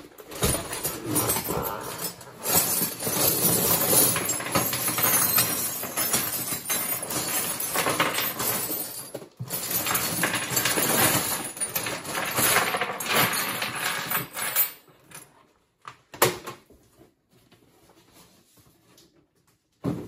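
A mound of chrome sockets and wrenches being poured from a cardboard box onto a workbench: a long, dense clatter of steel on steel. It thins out after about fifteen seconds to a few separate clinks.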